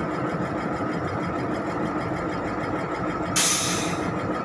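Diesel engine of a Valmet reach stacker running steadily as it carries a container. About three and a half seconds in there is a short, sharp hiss of air.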